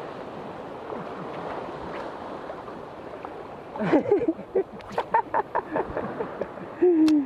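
Small waves washing along a rocky shore, a steady noise. About four seconds in, brief voice sounds and a run of sharp short clicks break in, and a short voice sound comes near the end.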